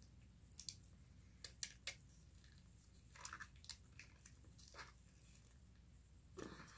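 Faint eating sounds: scattered soft clicks and smacks of someone chewing food.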